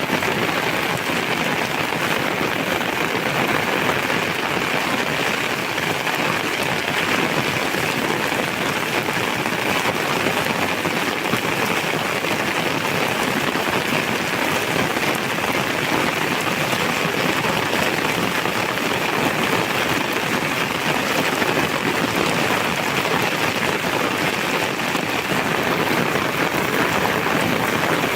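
Heavy rain falling steadily, a dense even hiss of drops hitting the ground and surroundings.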